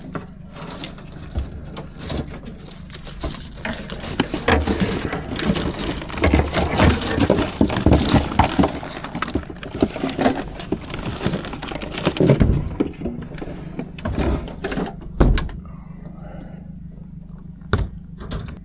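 Wire crab pot rattling and clanking with irregular knocks as mud crabs are shaken out of it into a plastic esky. About fifteen seconds in comes a heavy thud as the carpeted deck hatch is shut.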